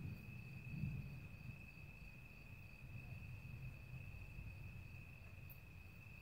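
Faint, steady high-pitched trill of a cricket singing continuously, over a low uneven rumble.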